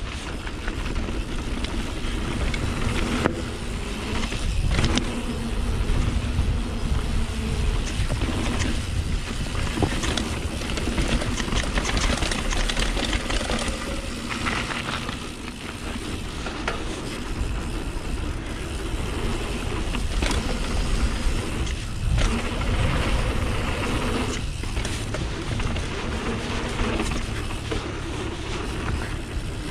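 Fast mountain-bike descent on a 2018 YT Capra AL 27.5: wind buffeting the helmet-mounted camera and the tyres rolling over a dirt trail, with knocks from bumps and landings now and then.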